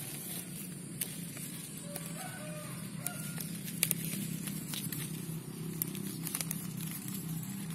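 Sharp clicks and leaf rustling as a hand handles a water apple branch and its flower-bud clusters, over a steady low hum. A few short clucks, like a chicken's, come about two to three seconds in.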